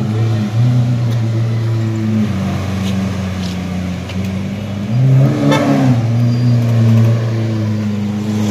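Lamborghini Aventador's V12 engine running at low revs as the car creeps across the forecourt, swelling briefly with a short rise in revs about five seconds in.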